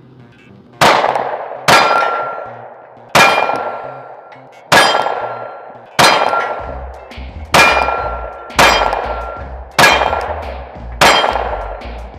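9mm Glock pistol fired at a slow, steady pace, about ten shots roughly a second apart, each shot ringing out with a metallic clang. The shots keep coming without a pause for a stoppage, the gun cycling cleanly from a fully loaded 15-round PSA Dagger Micro magazine.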